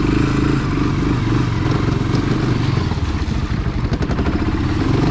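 ATV (four-wheeler) engine running cold at a low idle, a steady fast pulsing beat. The cold engine is struggling to hold its idle, which the rider means to turn up.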